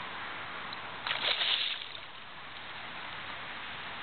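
River water lapping and sloshing steadily, with a brief louder hiss just after a second in that lasts under a second.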